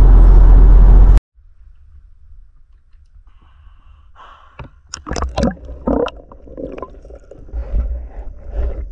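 Loud low rumble of a car driving, heard inside the cabin, which stops abruptly about a second in. Then a spearfishing diver at the water's surface breathes hard in short, irregular gasps amid gurgling water.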